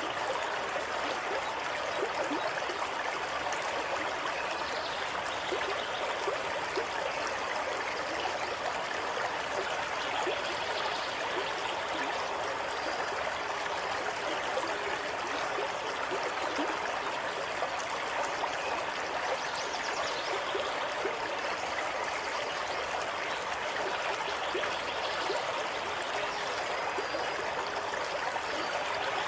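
Stream water running steadily, an even rushing and trickling without pause.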